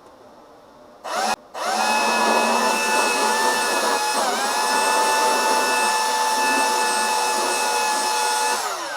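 Electric power sander switched on about a second in, stopping for a moment and starting again, then running steadily with a whine. It sags briefly once near the middle and spins down when switched off near the end.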